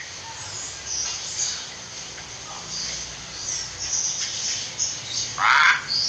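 Hill myna calling: a string of short, high chirps, then a louder, harsh call near the end.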